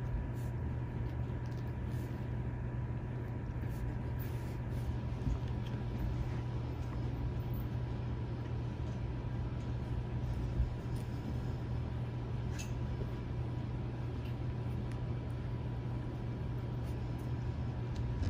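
A steady low hum with a faint, steady high-pitched tone, and two faint clicks about ten and twelve seconds in.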